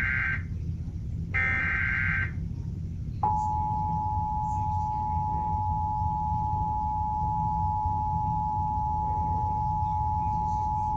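Emergency Alert System broadcast: the tail of one burst and then a second burst of rasping SAME header data tones. About a second later the standard EAS two-tone attention signal (853 and 960 Hz together) starts and holds steady for about eight seconds, announcing an emergency alert. A low steady hum runs underneath.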